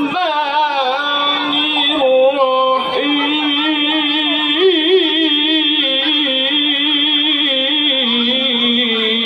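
A man's voice reciting the Quran in the melodic tilawah style, amplified through a microphone. It moves through drawn-out, ornamented phrases with short breaths, then holds one long note for about six seconds, with a wavering turn in the middle and a step down in pitch near the end.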